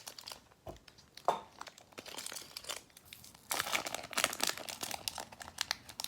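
Foil wrapper of a Pokémon booster pack crinkling and tearing as it is opened by hand, in scattered crackles that grow busier about halfway through.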